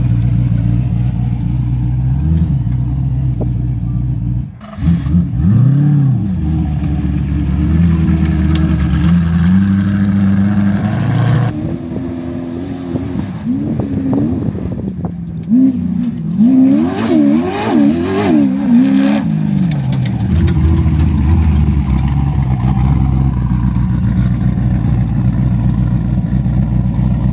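Off-road vehicle engine driving hard, its revs rising and falling, with a couple of abrupt cuts in the sound. For a few seconds in the middle the revs flare up and down in quick succession.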